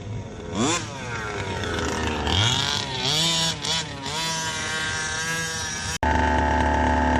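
Two-stroke gas engine of a Losi DBXL 1/5-scale RC buggy fitted with a tuned pipe, revving sharply about half a second in, then rising and falling in pitch several times as it is driven. About six seconds in the sound cuts abruptly to a steady, even engine hum.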